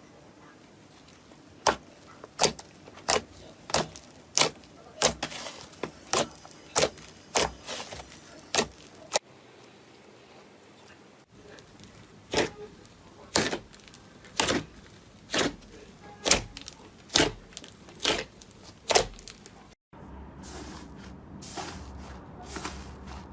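Slime being pressed and poked by hand, each press giving a sharp pop in a steady rhythm of one to two a second. The pops stop for a couple of seconds around the middle, and a low hum takes over near the end.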